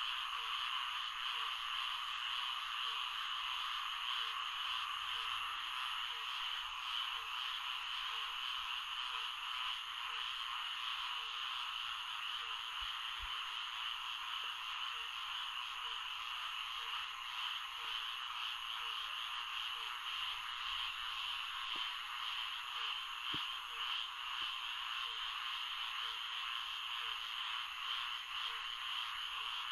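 Florida swamp ambience: a dense, steady chorus of frogs, with a soft low call repeating every half second or so beneath it.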